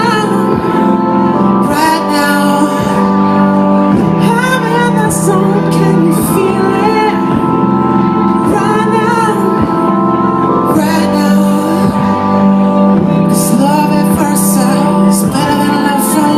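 A live band plays a song with held synth-like chords, a steady drum beat and a sung melody that wavers in pitch, in phrases a couple of seconds apart.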